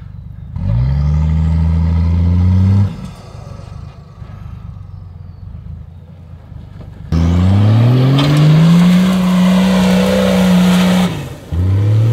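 4x4's engine revving hard under load as it climbs a steep dirt slope. It comes in three bursts: one of about two seconds, a longer one of about four seconds from about seven seconds in, and a short one near the end. Each burst rises in pitch and then holds, and the engine drops back to a low idle between them.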